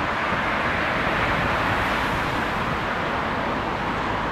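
Steady, even rushing noise of outdoor traffic, with no clear engine note or distinct events.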